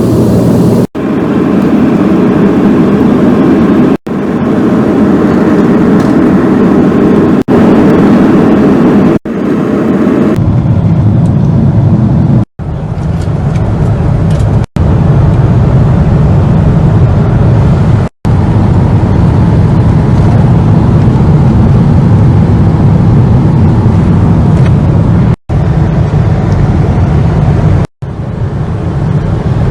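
Loud, steady rumble of a vehicle in motion, heard as a string of short clips that each cut off abruptly. About ten seconds in, the rumble turns deeper and duller.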